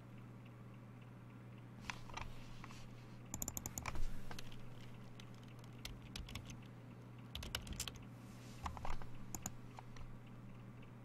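Typing on a computer keyboard in short bursts of key clicks, with pauses between, over a low steady hum.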